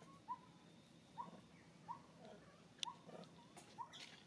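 Baby long-tailed macaque crying: short, high calls repeated about once a second, five in a row. There is a sharp click about three seconds in.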